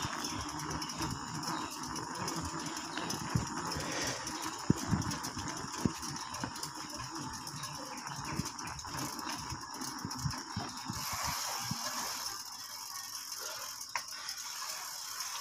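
Bicycle rattling and knocking as it rides over a rough dirt lane, picked up by a phone mounted on the bike's frame. Irregular bumps and ticks run throughout and ease off about eleven seconds in.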